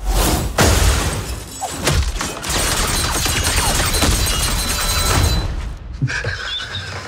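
Action film trailer soundtrack: a dense, loud mix of booms and crashing impacts over music, which drops away sharply about six seconds in to a quieter passage.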